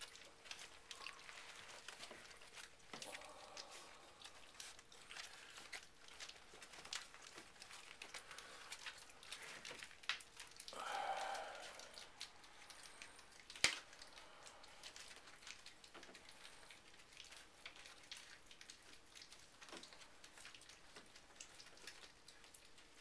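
Four-week-old puppies eating soft food off a paper plate: many small wet clicks of lapping and chewing, with paper crinkling. A brief whine comes about eleven seconds in, and a single sharp click a couple of seconds later.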